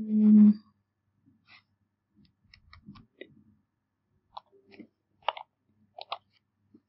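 A short bit of voice at the very start, then scattered clicks of a computer keyboard as a word is typed, a few keystrokes at a time.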